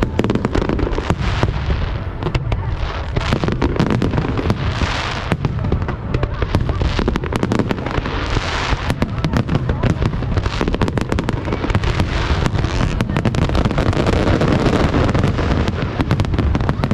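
Fireworks display going off in a rapid, continuous barrage of bangs and crackles. A rushing crackle swells twice, about five and eight seconds in.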